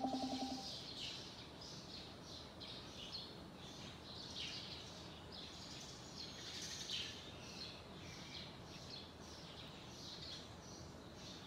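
Small birds chirping and twittering over steady outdoor background noise. A short, buzzy, fast-pulsing tone sounds right at the start.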